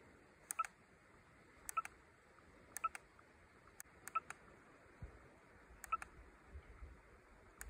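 Compact digital camera's buttons being pressed to scroll through photos in playback, each press giving a small click with a short electronic beep, about seven times at uneven intervals.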